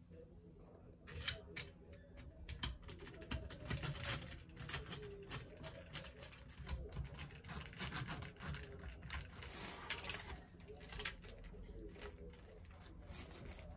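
Hands handling plastic PC case fans on a radiator mounting plate set on plastic sheeting: irregular small clicks and knocks of fan frames, with crinkling plastic.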